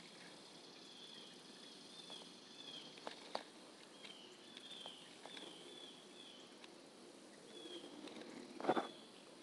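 Faint outdoor ambience with a small animal chirping: short, high, slightly curving notes about two a second, pausing briefly midway. A short louder rustle or knock comes near the end.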